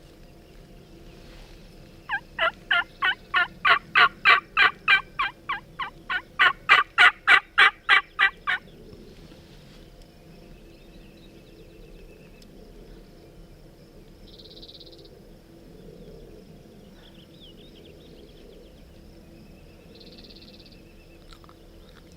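Turkey calling: a fast run of about thirty short, sharp notes lasting some six seconds, beginning about two seconds in and stopping abruptly.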